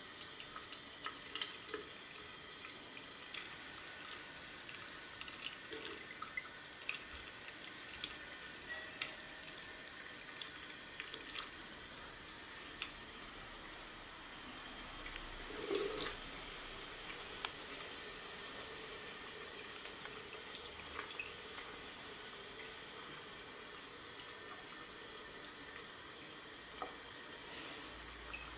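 A thin stream of water running from a chrome mixer tap into a ceramic bathroom basin: a steady hiss with small ticks of splashing, and a single brief louder knock about halfway through.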